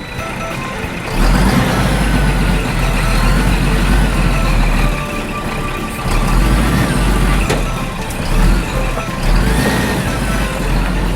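Truck engine running, loud from about a second in, with background music over it.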